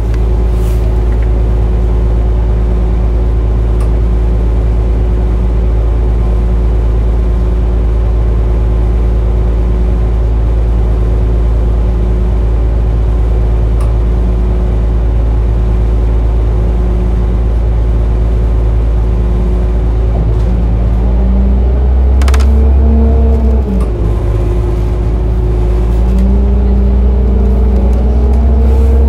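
2006 Orion VII transit bus's diesel engine idling with a steady low hum and a faint whine. About 21 s in, the sound grows louder and its pitch rises, with a short sharp noise near 22 s. It dips briefly and then climbs again toward the end.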